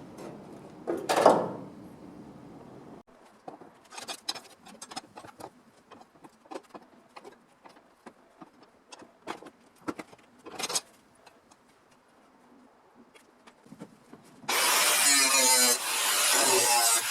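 Scattered light taps and clicks of hand work on sheet metal, then a power tool starts about fourteen seconds in and runs loudly, its pitch wavering as it works.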